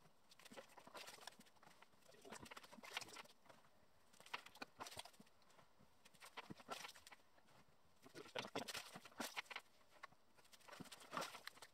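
Water splashing and sloshing in a flooded brick pit as it is scooped out with a bucket, in short bursts every second or two.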